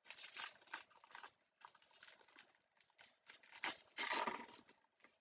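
Foil wrapper of a Panini Mosaic soccer card pack being torn open and crinkled by hand, a run of rustling bursts with the loudest crinkle about four seconds in.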